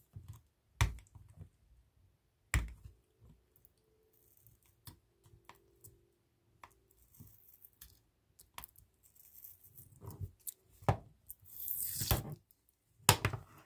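Hard clear plastic case being handled: scattered taps and clicks of the plastic, with short rasping bursts as the sealing tape is peeled off its side, the longest near the end.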